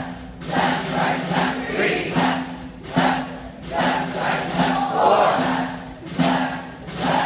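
A group of voices chanting a marching cadence in a steady rhythm, punctuated by sharp percussive hits a little over once a second.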